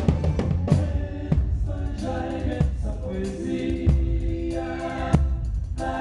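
A live band playing a song, with singing over held chords and drum hits.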